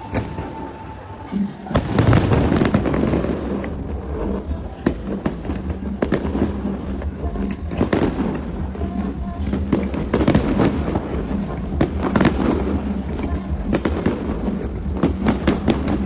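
Aerial fireworks going off in a dense, continuous run of bangs and crackles, starting about two seconds in, with music playing underneath.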